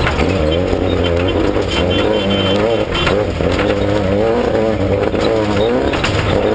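Off-road race vehicle's engine running hard over rough ground, revving up and down again and again over a deep rumble.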